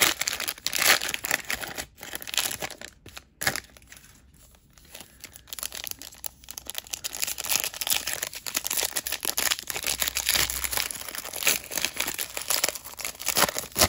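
Foil trading-card pack wrapper crinkling as it is torn open and handled, in quick irregular crackles, with a quieter stretch about four to six seconds in.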